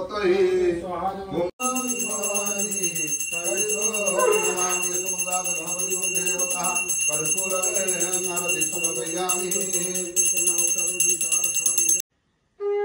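A small brass puja hand bell rung continuously in a fast, shimmering ring, over voices chanting the aarti. The ringing cuts off suddenly near the end, and a conch shell then sounds one steady note.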